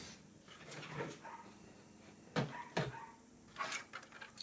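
A few light clicks and knocks of SLS nylon 3D-printed plane parts being handled, over a quiet background.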